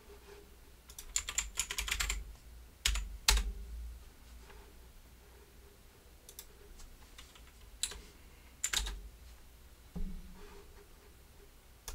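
Scattered sharp clicks and taps in short bursts, like typing on a keyboard: a quick run of them about a second in, two louder knocks around three seconds, then a few more spaced apart.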